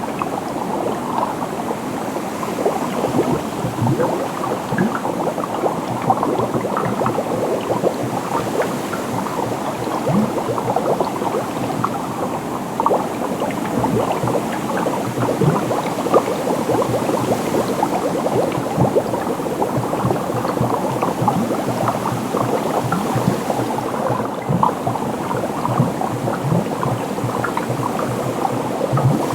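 Water bubbling and gurgling steadily, a dense run of small plops.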